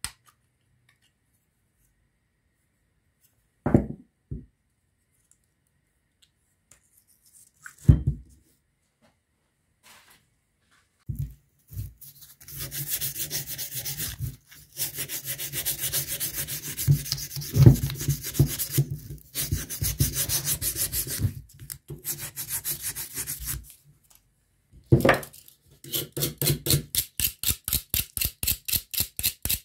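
Rusty steel shaft of a small water-pump motor being scrubbed with an abrasive pad to clean off rust: fast back-and-forth rubbing, after a few knocks of the motor being handled. The strokes turn quick and regular near the end, about five a second.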